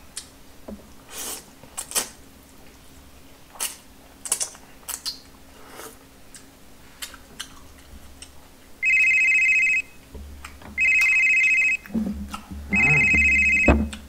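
Small mouth sounds of eating noodles, chewing and smacking. From about nine seconds in, a telephone rings three times: electronic rings about a second long, two seconds apart, louder than the eating.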